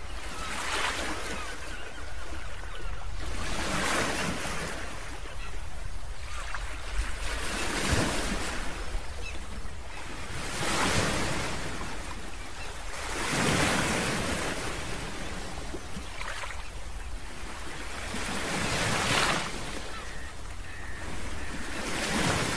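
Ocean surf breaking and washing over a rocky shore, swelling into a rush of white water about every three seconds.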